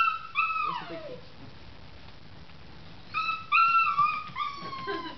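Nine-week-old kitten meowing, high-pitched: two meows at the start, then a run of three more from about three seconds in, the last one long and dropping in pitch.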